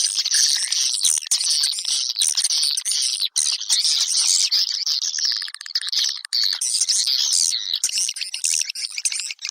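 Swiftlet calls: a dense, high twittering of many chirps, with a fast buzzy rattle from about five to seven and a half seconds in. It is a swiftlet lure call, played to draw swiftlets into a nesting house.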